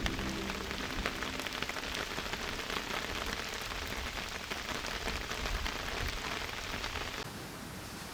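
Steady rain falling, heard as a dense hiss of many separate drop ticks; it thins out abruptly about seven seconds in.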